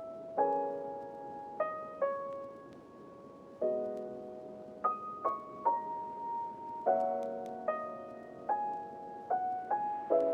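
Slow, gentle piano music: single notes and soft chords struck every half second to a second, each left to ring and fade.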